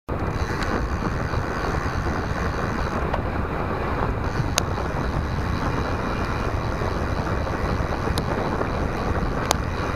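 Wind buffeting the microphone of a bicycle-mounted camera while riding, a steady low rumble, with a few sharp ticks about halfway through and near the end.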